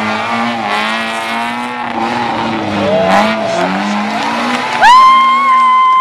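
Rally car engine revving up and down through a chicane, with a short tyre squeal about three seconds in and a long, loud tyre squeal from about five seconds in that cuts off sharply.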